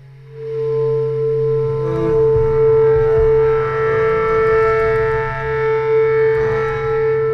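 Background film music: one long held tone over a steady low drone, swelling in just after the start and sustained throughout.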